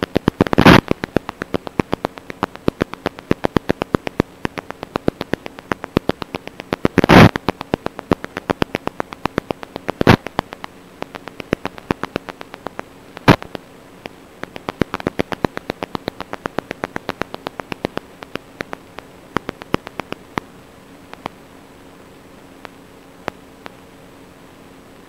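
Crackling static: a run of irregular sharp clicks with a few loud pops, thinning out near the end, over a faint steady hum.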